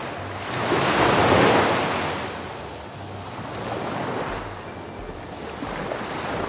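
Ocean waves washing in surges, three swells of surf noise with the biggest about a second in, over a low hum.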